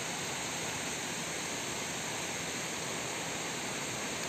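Steady, even hiss with no separate events.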